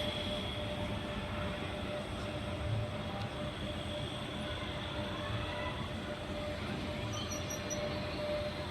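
Electric commuter train running on the track, with a low rumble and a steady whine.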